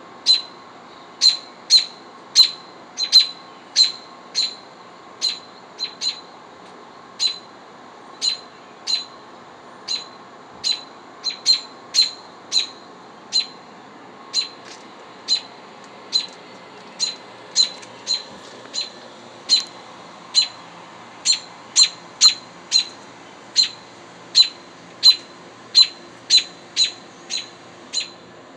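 American robin giving sharp alarm calls, single short notes repeated irregularly about once or twice a second: a parent bird scolding an intruder near its nest.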